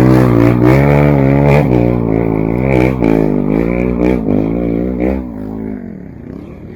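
Trail dirt bike engine revving hard and repeatedly, its pitch rising and falling with each blip of the throttle, as the bike is worked through slippery mud. The engine note falls away about five seconds in.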